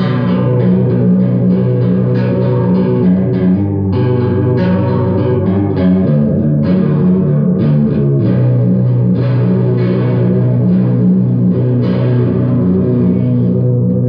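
Electric guitar strumming chords through a home-built Small Clone-style chorus pedal and an amp, the chords ringing on with repeated strokes and changing every few seconds.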